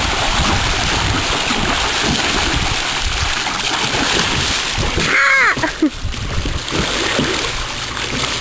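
Water splashing and sloshing steadily around a kayak in a swimming pool. About five seconds in, a short voice-like call rises and falls in pitch.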